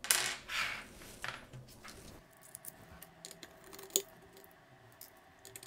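Light handling noise, then small scattered clicks of a precision screwdriver turning out the screws that hold a smart speaker's circuit board, with one sharper click about four seconds in.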